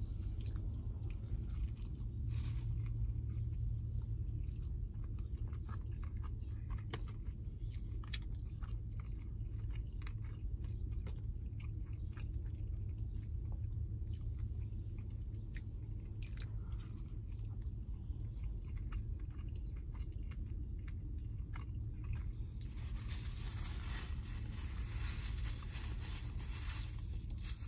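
Close-up chewing and biting on a Wendy's Jalapeño Popper chicken sandwich, with many small crunches and wet mouth clicks, over a steady low rumble in the car. About 22 seconds in, a louder hissing noise joins.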